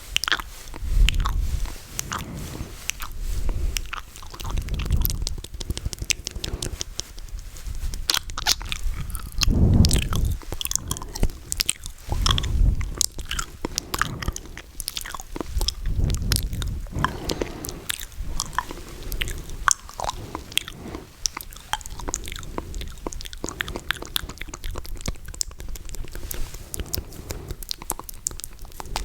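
ASMR mouth sounds made close to the microphone: wet clicks, pops and smacking from lips and tongue, with occasional low thumps of breath or movement on the mic.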